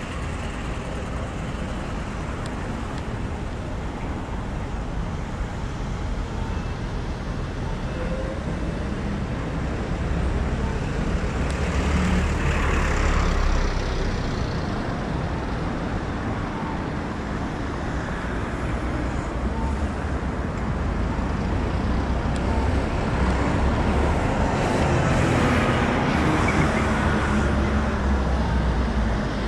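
Road traffic on a city street: a steady wash of passing cars and heavier vehicles. Louder vehicles pass about twelve seconds in and again around twenty-five seconds in.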